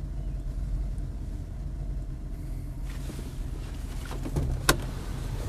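Car engine running with a low steady rumble. A hiss comes in about three seconds in, and near the end come a few light clicks, then one sharp click.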